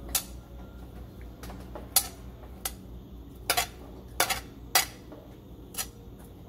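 Metal spoon clinking against a ceramic plate and a frying pan as chopped bell peppers, onion and spring onion are scooped into the pan: about eight sharp clinks at uneven intervals, the loudest about two seconds in.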